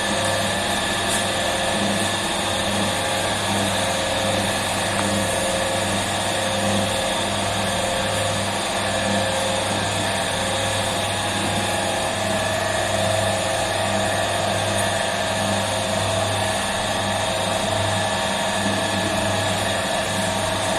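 Steady machine hum of bakery equipment running, a low hum with a slight wavering flutter and steady higher whines over it.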